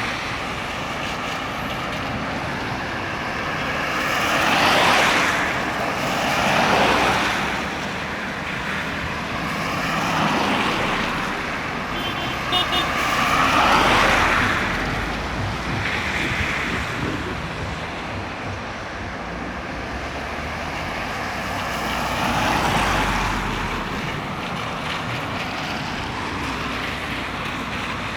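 Highway traffic passing: a steady road hiss with vehicles going by one after another, each swelling up and fading away, the loudest passes about five, seven, ten, fourteen and twenty-three seconds in.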